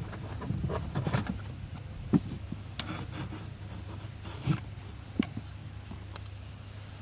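Air-conditioning cabin filter being pulled out of its plastic housing by hand: rubbing and scraping, with three sharp plastic knocks, the loudest about two seconds in.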